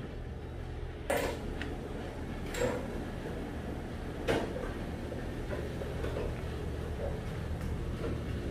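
Three sharp clinks of kitchenware, about one, two and a half and four seconds in, with a few fainter knocks between, over a steady low hum.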